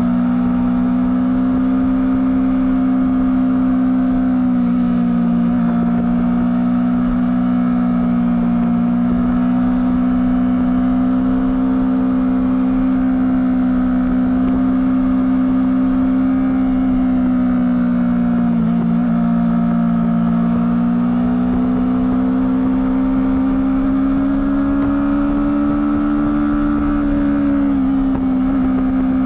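Honda CBR250RR motorcycle engine through its stock exhaust, running at fairly steady revs. The pitch drifts slowly up and down, with three brief dips in revs.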